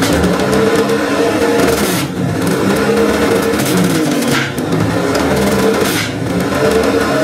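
Electric centrifugal juicer running while carrot pieces are pressed down its feed chute, its motor whine sagging and rising in pitch with the load.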